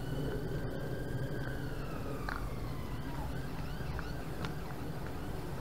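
An emergency vehicle's siren wailing, its pitch slowly rising and falling, over a steady low rumble. A few short sharp ticks come through in the second half.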